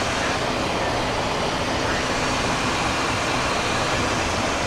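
Steady rushing noise in the cockpit of a Cessna Citation XLS business jet in flight: airflow over the airframe blended with the hum of its turbofan engines.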